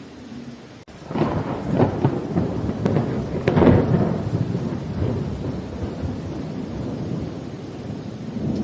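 Thunder rumbling and crackling over steady rain: it breaks in about a second in, is loudest around the middle, then slowly dies away.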